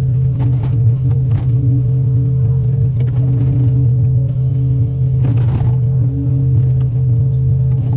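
Excavator's diesel engine running steadily under background music, with a few short sharp noises, the loudest about five seconds in.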